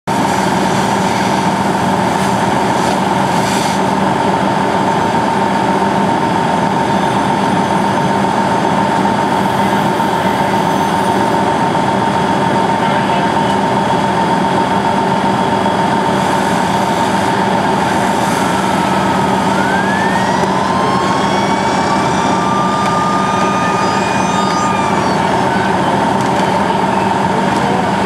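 Fire engine's diesel engine and pump running steadily at raised revs while supplying hose lines, a constant loud drone with a steady hum. A few faint gliding tones rise and fall about two-thirds of the way through.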